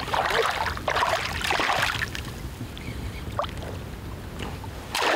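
A small hooked pike thrashing at the water surface, splashing in several bursts over the first two seconds, then quieter lapping water.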